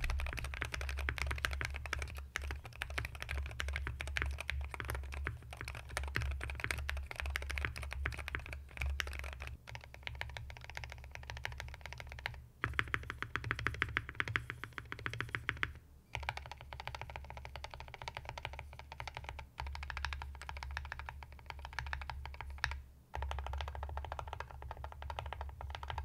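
Typing on a Wooting 60HE keyboard fitted with a polycarbonate switch plate, lubed switches and stabilizers, a two-layer tape mod and bottom foam: a steady stream of keystrokes. About halfway through there is a quicker, even run of strokes, with a few brief pauses.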